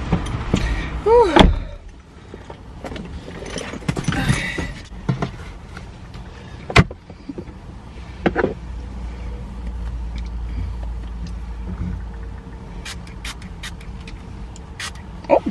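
A driver getting into a car: rustling and knocks as she climbs into the seat, with a loud thump about a second and a half in, then more handling noise, a single sharp click about seven seconds in, and a few light taps, over a steady low rumble of the car.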